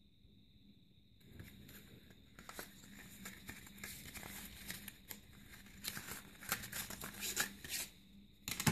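Paper rustling and crinkling as a paper envelope is opened and printed booklets are slid out of it, with small handling clicks, starting about a second in and getting busier and louder towards the end.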